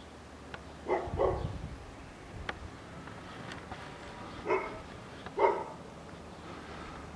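A dog barking: two quick barks about a second in, then two more single barks a few seconds later.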